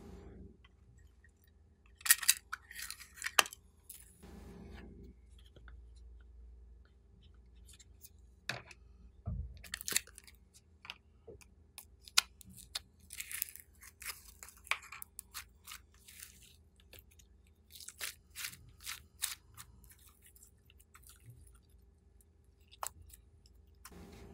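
Close-up handling sounds of a small plastic tub of slime being emptied onto a tray of slime: scattered clicks, taps and short crunchy crackles, bunched in clusters about two, ten, thirteen to fifteen and eighteen seconds in.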